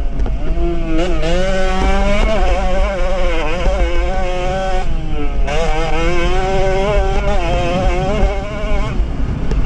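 Small two-stroke Jawa 50–class race motorcycle engine running at high revs. Its pitch keeps rising and falling as the throttle is worked, with a brief drop about five seconds in. Heavy wind rumble on the helmet microphone.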